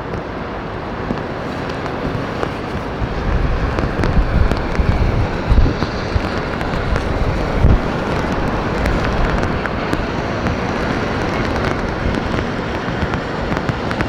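Steady hiss of rain, with wind buffeting the microphone in low gusts about four to eight seconds in and scattered small ticks of drops.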